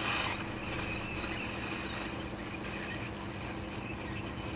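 Hot air rework station blowing steadily onto a laptop motherboard to desolder an IC: a constant airflow hiss over a low fan hum, with faint high, wavering squeaks on top.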